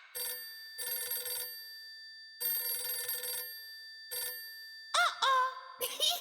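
A telephone bell ringing in several bursts, each a ringing trill holding steady tones. About five seconds in, high squeaky gliding sounds begin.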